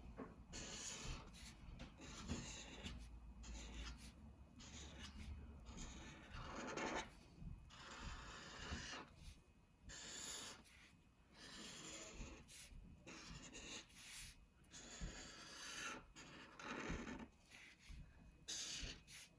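Thick black marker drawn over paper in a run of outlining strokes: a faint scratchy rubbing, each stroke about a second long with short pauses between.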